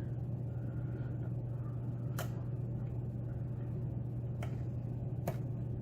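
Pin tumbler lock being picked: three faint, sharp clicks of pins and pick inside the cylinder, over a steady low hum.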